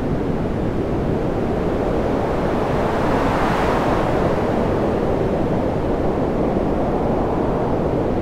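A steady, loud rushing noise like wind, heaviest in the low end, that grows a little brighter about halfway through.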